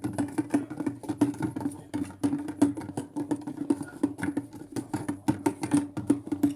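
Maytag washing machine running its delicate wash cycle: a steady hum with many quick, irregular clicks and knocks throughout.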